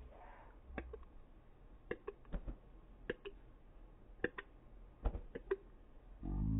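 A few faint, scattered clicks. Near the end a deep, drawn-out voice begins, slowed down by the slow-motion playback.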